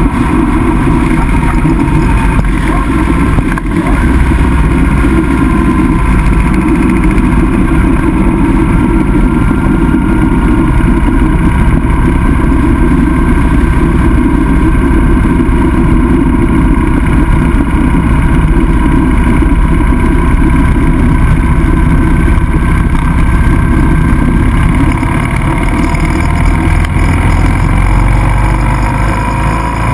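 Motorcycle engine running steadily at road speed, heard from a camera mounted on the bike, under a constant rush of wind and road noise.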